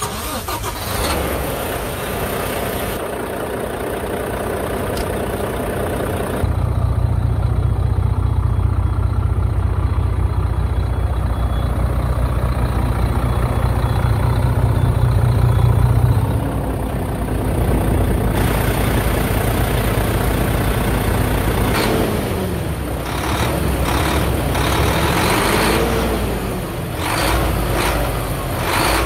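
Volvo semi truck's D13 diesel engine starting up and running. It grows much louder and deeper about six seconds in, eases off after about ten seconds, and its pitch rises and falls a few times near the end.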